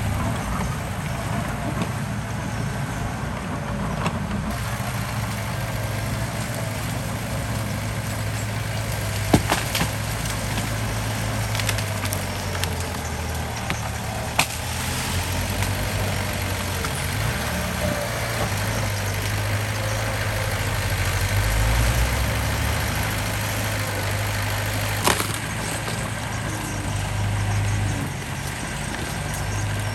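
Heavy diesel engine of earth-moving machinery running under varying load, its low hum shifting in pitch and swelling about two-thirds of the way in. A few sharp cracks or knocks stand out, about a third, halfway and most of the way through.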